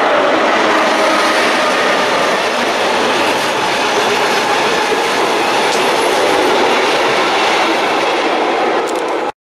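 Train passing close by at speed: loud, steady rolling noise of its wheels on the rails, which cuts off abruptly near the end.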